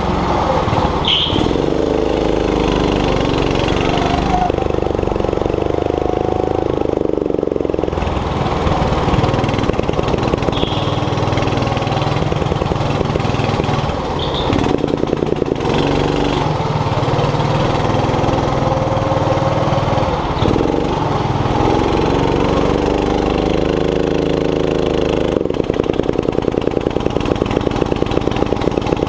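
Go-kart engine heard from the driver's seat, running hard and rising and falling in pitch as the kart accelerates out of corners and lifts into them, with a few brief high squeals.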